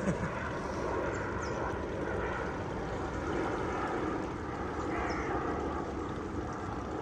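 Large aeroplane flying overhead: a steady drone of its engines.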